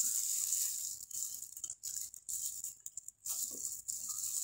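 Faint eating sounds: chewing, and a plastic-gloved hand picking at fried tilapia, over a steady hiss.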